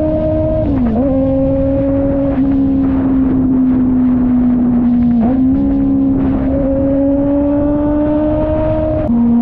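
Kove 450rr single-cylinder motorcycle engine running under way at a steady pitch. The note dips briefly about a second in and again about five seconds in, then slowly rises and drops again near the end. A low wind rumble runs beneath it.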